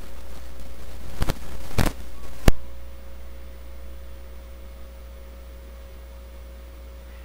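Dumbbell knocking as it is set down after a set of curls: three sharp knocks in the first two and a half seconds, the last the loudest, then a steady electrical hum.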